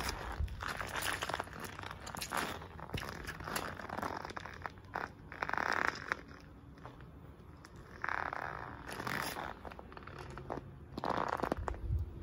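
Rubber soles of Nike Air Force 1 sneakers stepping and grinding on mashed bananas and peels over concrete: squishing and gritty scraping, in a run of short strokes and then three longer scrapes a few seconds apart.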